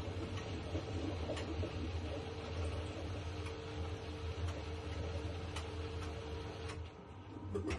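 Washing machine running with a steady motor hum and a few light clicks, stopping about seven seconds in.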